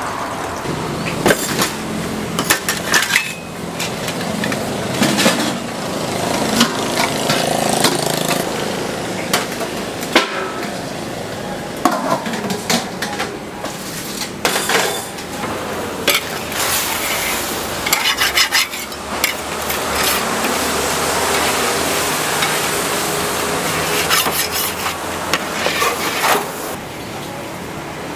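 Metal spatula clanking and scraping against a wok, with frequent sharp strikes, over the steady sizzle of noodles frying; the sizzle is strongest in the second half.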